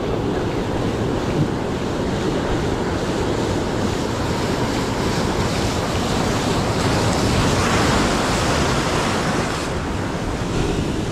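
Ocean surf breaking and washing through the boulders of a rock jetty, a steady rush that swells loudest about two-thirds of the way through, then eases slightly.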